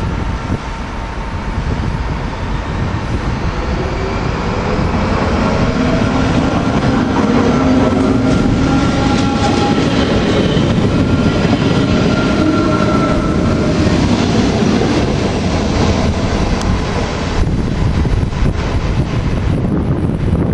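NS SGMm Sprinter electric multiple unit running past the platform: rumble of wheels on the rails with a whine that glides in pitch. It grows loudest about halfway through as the train goes by, then eases as it pulls away.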